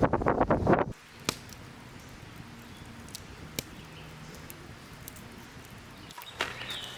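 Wind buffeting the microphone, stopping abruptly about a second in. Then it is quiet apart from a few faint, sharp clicks.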